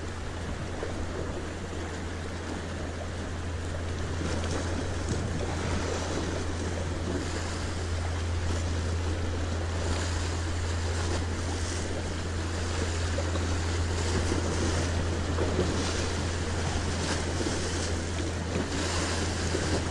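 Sea waves washing against the shore, with a steady low rumble of wind on the microphone, slowly growing louder.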